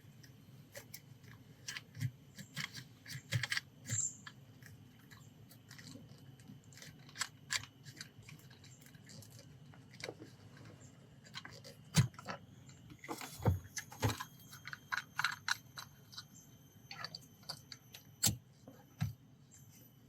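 Irregular clicks, taps and knocks of a hard plastic car phone mount being handled and adjusted, with a sharper knock about twelve seconds in and a quick cluster of clicks shortly after, over a steady low hum.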